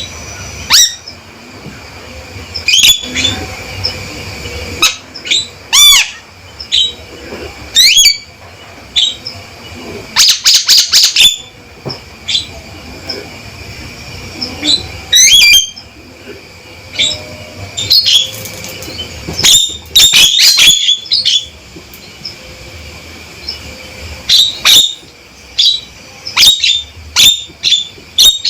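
Male Javan myna calling loud and clear: irregular bursts of sharp, harsh notes and short gliding whistles, with a fast rattle of clicks about ten seconds in.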